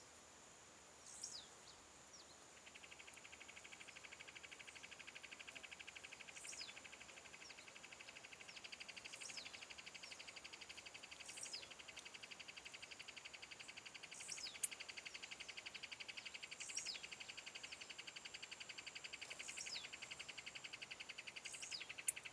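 A bird repeats a short, high call that falls in pitch, about once every two to three seconds, eight times in all. From about two and a half seconds in, a fast, steady insect trill runs under it. Two sharp clicks stand out, one past the middle and one near the end.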